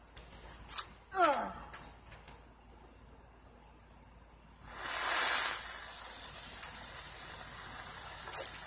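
A small ground firework burning: a loud hissing burst about four and a half seconds in that settles into a steady spraying hiss and dies away near the end. About a second in there is a sharp pop with a short falling squeal.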